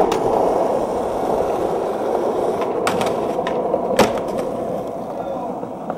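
Skateboard wheels rolling over rough asphalt with a steady rumble, broken by sharp clacks of the board: two a little before the three-second mark and a louder one about four seconds in.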